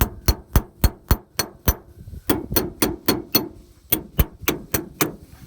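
A wrench beating on metal, about twenty sharp ringing blows at roughly four a second in three runs with short pauses. The owner beats it this way to get the no-start 1982 Chevy 350 to come on.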